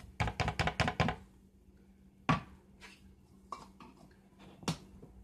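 Measuring spoon and baking-powder can handled over a mixing bowl: a quick run of about seven light clinks in the first second, then three single knocks about a second apart.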